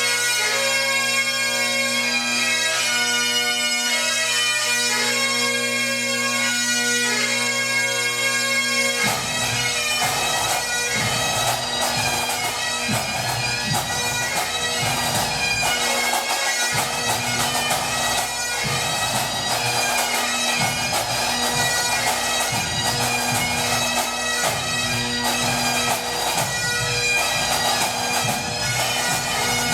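Highland bagpipes playing a tune over their steady drones. About nine seconds in, drums join with fast, dense beating beneath the pipes, as in a pipe band.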